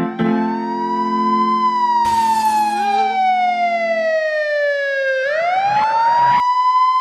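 Emergency-vehicle siren wailing: the pitch rises, falls slowly for about four seconds, then rises quickly again about five seconds in. A held piano chord under it fades out about four seconds in, and two short bursts of hiss come about two seconds in and again about five seconds in.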